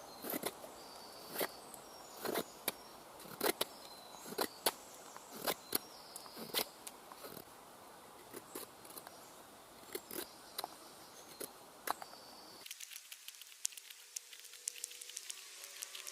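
A knife blade shaving curls off a dry, slightly rotten stick of wood, in sharp irregular strokes about one or two a second, with small birds chirping faintly. Near the end the strokes stop and only fainter quick ticks are left.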